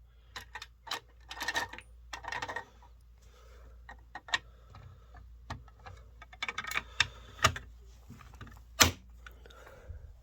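Irregular clicks, clinks and short rattles of a fire alarm pull station being handled, with the broken pieces of its glass break rod rattling; one sharper knock near the end.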